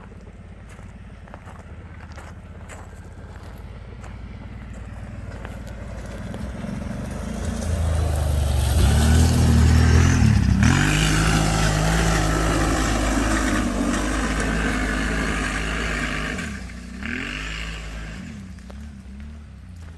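Kawasaki Brute Force 750 ATV's V-twin engine working on a hill climb. It grows louder over the first half and is loudest in the middle, its pitch rising and falling with the throttle, then it drops off and fades near the end.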